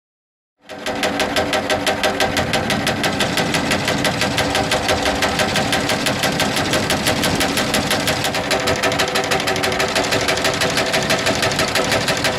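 Electric combine side knife (Matrot) running after being switched on: the reciprocating knife blades make a fast, even mechanical clatter over the steady hum of the drive motor. It starts suddenly less than a second in.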